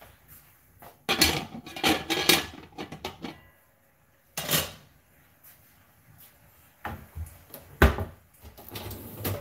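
Metal kitchenware being handled: pots, pans and utensils clattering and knocking in irregular bursts, busiest a second or two in, with a loud single knock near the end.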